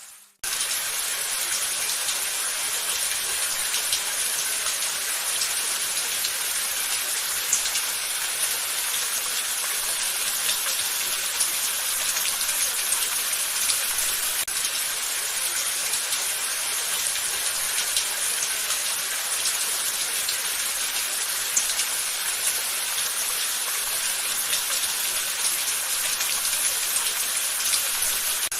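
Steady rain: an even hiss of falling water with scattered drop ticks, cutting in abruptly just after a brief silence at the start.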